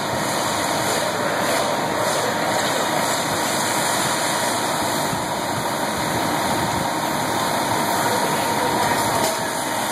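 Fire truck engine running steadily, a continuous unbroken noise with no breaks or changes.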